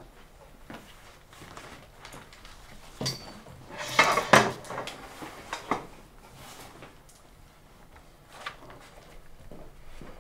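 A short clatter of knocks and scrapes from a chair and table as someone sits down at a classroom table, loudest about four seconds in, with a few lighter knocks afterwards.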